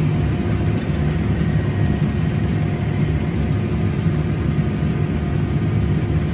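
Farm tractor's diesel engine running steadily under load while towing a Bourgault air seeding drill across the field.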